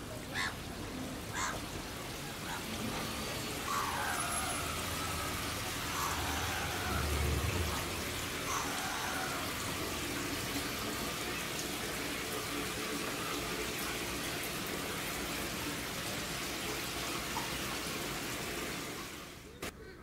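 Steady rush of water falling down a water wall into a shallow pool at its base. It cuts off near the end.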